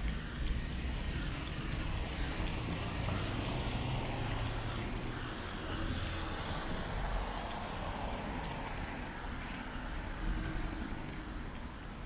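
Steady road traffic: a continuous rumble of car engines and tyres passing on a busy city avenue.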